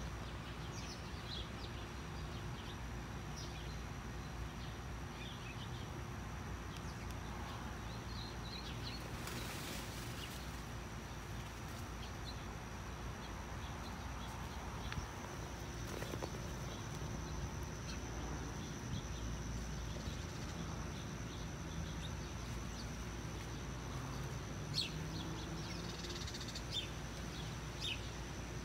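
Outdoor garden ambience: scattered short bird chirps over a steady high-pitched insect drone and a low background hum.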